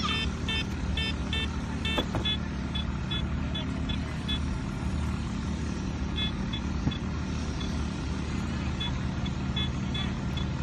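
MD-3009II metal detector beeping in short, evenly spaced pips, about three a second, in spells that fade and return, signalling metal under its search coil. Under it runs the steady drone of a grass cutter's engine, the loudest sound throughout.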